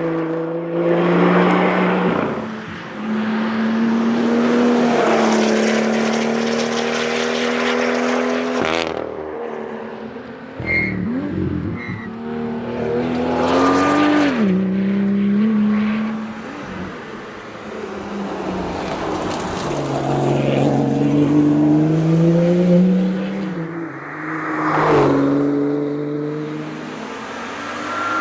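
BMW M2's turbocharged straight-six engine driven hard, its note climbing with the revs and dropping sharply at gear changes and off-throttle moments, several times over.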